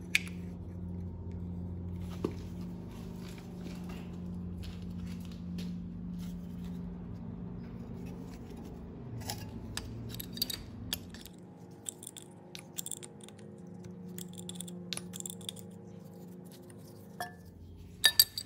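Adjustable wrench clicking and clinking against a nut welded onto a broken, rusted exhaust-manifold stud as the seized stud is turned out of the cylinder head. The light metallic clicks come more often in the second half, over a steady low hum.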